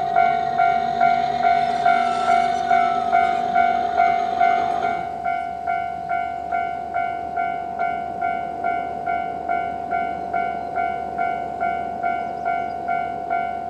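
Japanese level-crossing electronic warning bell ringing at a fast tempo, about two strikes a second. For the first five seconds or so an Aizu Railway AT-500 diesel railcar runs through the crossing with engine and wheel noise that then fades, leaving the bell alone.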